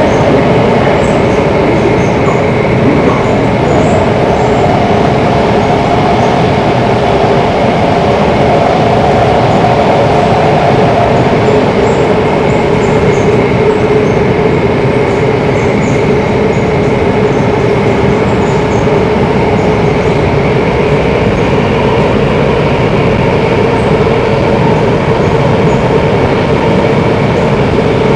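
Singapore MRT subway train running through a tunnel, heard from inside the carriage: a loud, steady rumble of wheels on track with a constant hum underneath.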